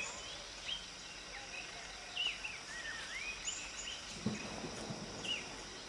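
Birds calling in the open with short, swooping chirps, several in each second, over a steady outdoor background hiss. A brief low knock about four seconds in.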